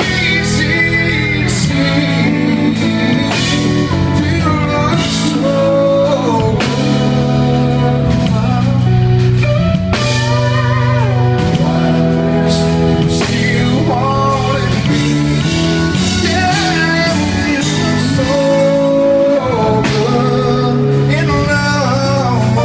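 Live country ballad: a male lead vocalist singing into a handheld microphone over a band of electric guitar and drums.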